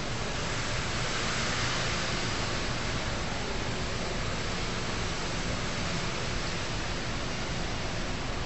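Steady, even rushing noise, like air moving, that does not change at all.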